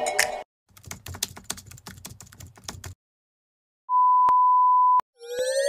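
Sound effects of a retro VHS-style video transition: the tail of a jingle, then a rapid run of clicks like typing, a steady beep about a second long, and near the end a rising whirring sweep like tape being rewound.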